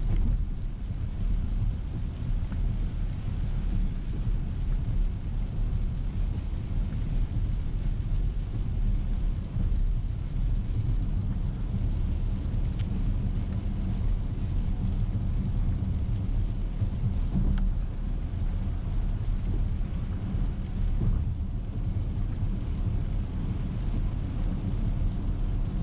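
A car driving on a wet road in the rain, heard from inside the cabin: a steady low rumble of road and engine noise with a faint hiss above it.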